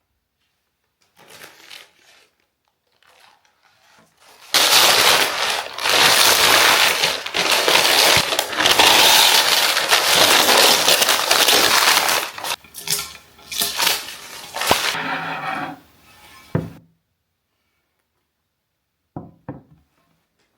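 Packaging being unwrapped: loud crinkling and rustling of paper or plastic from about four seconds in, dying down into scattered rustles and ending with a light knock.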